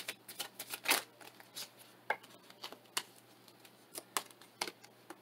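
A tarot deck being shuffled and flicked by hand: a quick run of crisp papery snaps in the first second or so, then single flicks every half second to a second.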